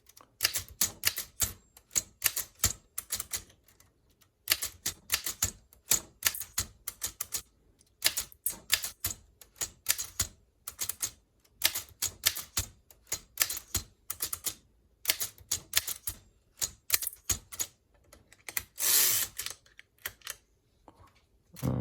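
1923 Underwood 3-bank portable typewriter being typed on, each key struck in a quick group of about three, with short pauses between the groups. A longer rasping sound comes about nineteen seconds in.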